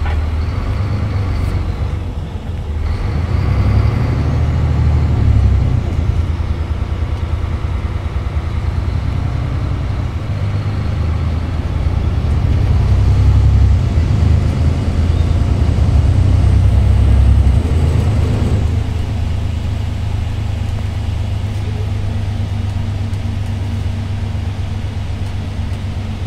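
Cabin sound of a VDL Citea SLE-120 city bus under way: its DAF PR183S diesel engine drones low under tyre and road noise. It briefly dips about two and a half seconds in, pulls harder for a stretch in the middle, then eases off for the last part.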